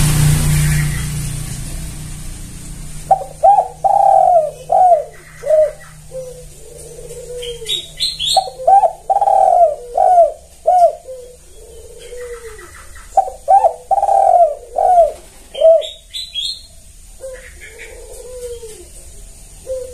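A spotted dove (tekukur) cooing in three phrases about five seconds apart. Each phrase is a run of short, quick coos with longer, lower notes between them. A passing vehicle fades out over the first few seconds.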